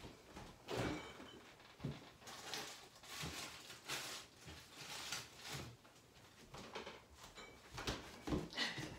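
Faint scattered knocks and clatter of someone fetching something from a refrigerator: the fridge door opening and shutting, footsteps and handling, as a dozen or so small knocks spread over several seconds.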